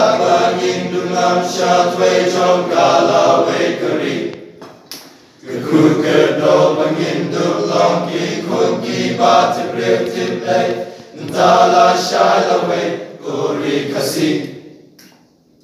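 Male choir singing unaccompanied in sung phrases, with a short break about five seconds in; the singing fades away near the end.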